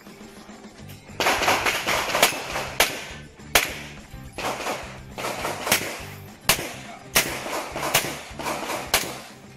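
A string of pistol shots, about a dozen, fired at uneven spacing with the first about a second in, as a competitor shoots through a practical-shooting stage. Background music plays underneath.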